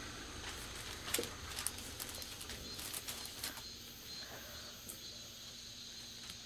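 Light rustling and a few short clicks from paper wrappers and grape bunches being handled while packing grapes, over a steady low hiss.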